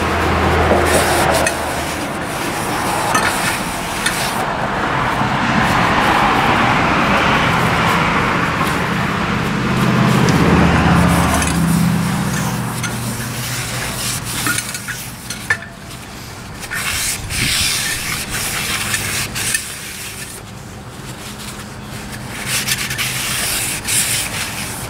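A new cast-iron brake drum being cleaned: a long spray hiss of aerosol brake cleaner and the rub of rags, then quieter clinks and handling knocks from about halfway through.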